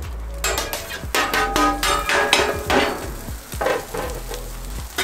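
Fridge-cold rice dumped onto a hot, oiled flat-top griddle, sizzling in the oil. A metal spatula scrapes and clanks against the griddle again and again as it spreads the rice.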